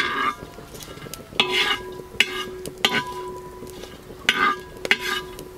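A spoon stirring whole spices (cloves, star anise, cinnamon sticks, bay leaves) in hot ghee in a pot. It makes several short scraping strokes with light clicks against the pot, over a faint sizzle.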